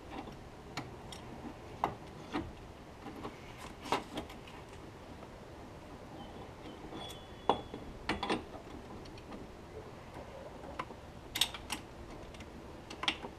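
Irregular light metallic clicks and taps from hands working parts around a turbo's external wastegate and its V-band clamp in an engine bay.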